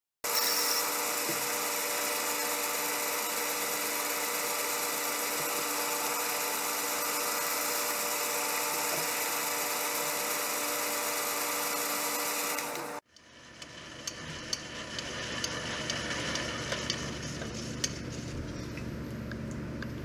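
Metal lathe running while cutting a 5/8-18 thread on a small turned part: a steady machine hum with several fixed whining tones. It cuts off abruptly about two-thirds of the way through, and a quieter running sound with scattered light ticks follows.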